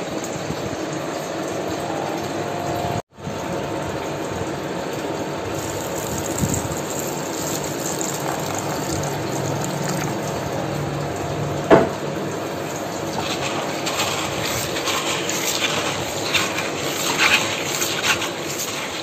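A steady rushing noise with a faint hum runs throughout, cut off for an instant about three seconds in. About twelve seconds in there is a single sharp knock, and near the end come small clicks and rustles of rocks being handled.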